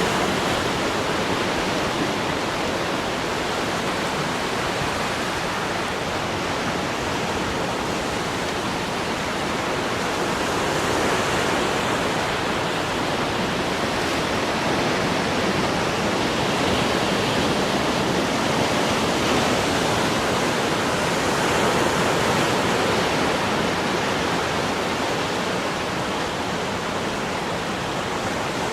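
Sea waves breaking and washing on the shore in a continuous roar of surf, swelling gently and easing off every several seconds.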